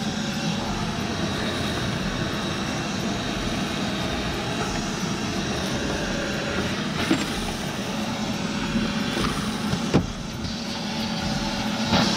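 Shop vacuum running steadily, with a few short knocks partway through.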